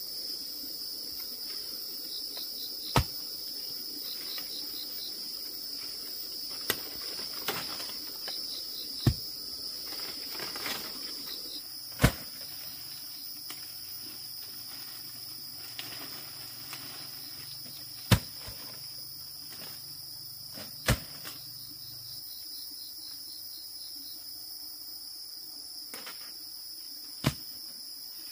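Steady high-pitched chorus of insects, with short runs of rapid chirping. Sharp knocks cut through every few seconds, the loudest about twelve and eighteen seconds in.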